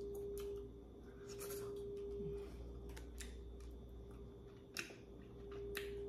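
Close-up eating sounds: scattered short clicks and smacks from chewing and handling food, with one sharper click near the end, over a steady low hum.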